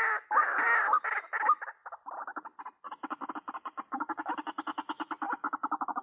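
White-breasted waterhens calling: loud, harsh cries for the first second and a half, then a rapid croaking series of about ten pulses a second that grows stronger about four seconds in.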